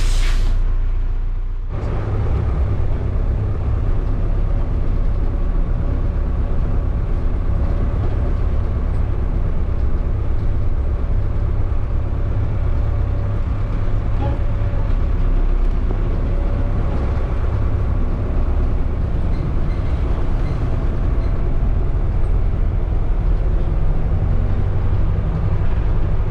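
Micro-bus motorhome driving along: a steady engine and road rumble, heaviest in the low notes, after a short hiss right at the start.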